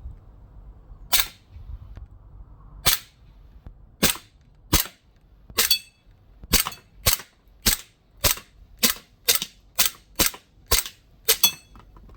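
Cybergun Desert Eagle .50 AE CO2 BB air pistol firing about fifteen sharp shots, spaced out at first and then quicker, about two a second.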